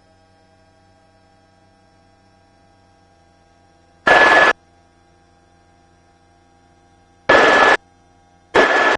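Helicopter intercom line with a faint steady hum, broken three times by short, loud bursts of noise with a thin whistle in them that cut in and out abruptly as the intercom mic keys open and shut.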